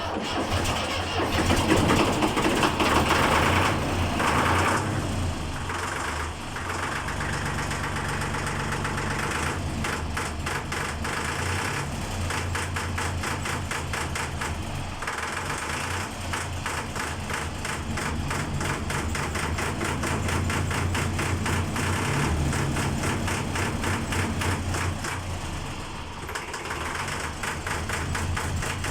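Diesel tractor engine running with a pronounced intake suction sound and an even firing rhythm, louder and fuller for the first few seconds, then settling into a steady run.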